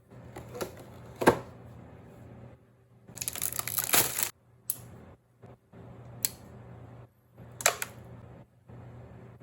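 Small plastic model kit parts being handled on a work surface: sharp clicks and knocks, the loudest a little over a second in, and a scraping, rustling burst about three seconds in. A steady low hum runs underneath.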